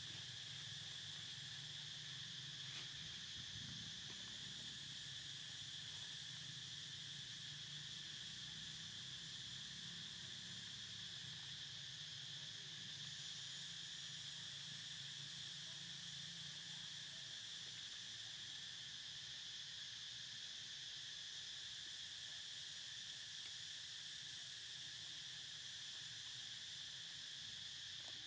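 Steady chorus of insects, a continuous high-pitched drone that does not change. A faint low hum lies beneath it for roughly the first half.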